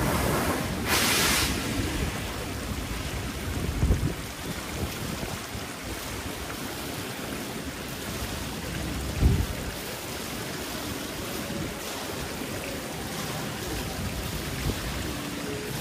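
Musical fountain's water jets giving a loud hiss about a second in, then the water splashing and falling away into a steady wash of water and outdoor noise, with wind buffeting the microphone in low thumps twice.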